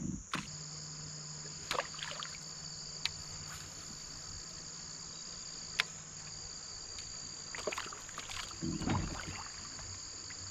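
Steady insect chorus, a high, even chirring. Over it come a few sharp clicks, the loudest about six seconds in, and a short run of knocks and rustling near the end.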